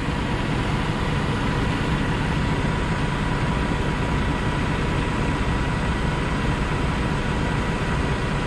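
Heavy-duty tow truck's diesel engine running steadily with the bus hooked to its underlift, with a faint steady high whine over the engine's even rumble.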